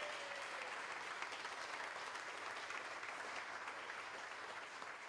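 A room of people clapping and applauding, the applause slowly dying away toward the end.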